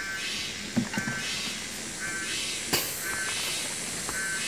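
An animal call repeating about once a second, each a short buzzy note, with a few sharp knocks about a second in and again just past halfway.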